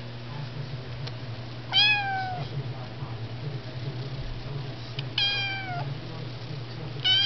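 Kitten meowing: three short, high meows, each sliding down in pitch, the last near the end.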